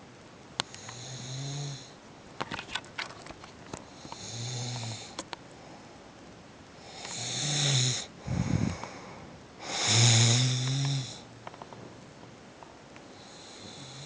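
Snoring in a slow rhythm, one drawn-out snore about every three seconds, the loudest two near the middle. A run of small clicks comes after the first snore, and a short rough burst falls between the two loudest snores.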